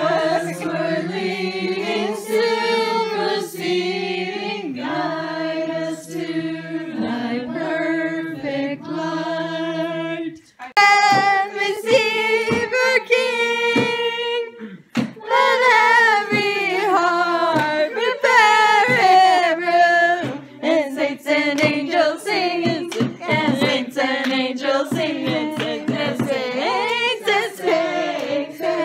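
Several people singing together without instruments, the melody wavering and breaking off briefly about 10 and 15 seconds in.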